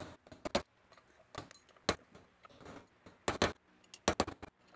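Hammer striking a steel punch set against the old wheel bearing race on the back of a Classic Mini Moke front drum hub, driving the race and its dust shield out. A series of sharp metallic taps at uneven intervals, some in quick pairs.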